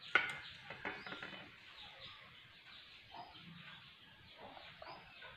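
A sharp clink right at the start, a serving spoon against a steel plate, then faint spooning sounds and faint bird chirps in the background while thick custard milk is ladled over bread squares.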